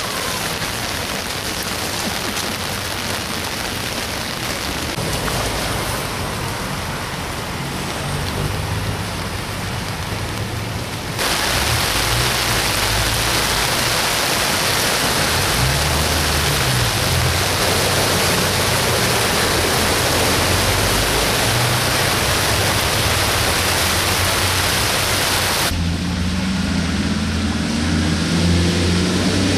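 Heavy rain and floodwater make a steady hiss, with car engines running low underneath. The hiss jumps louder about eleven seconds in and drops back near the end, where an engine revs up.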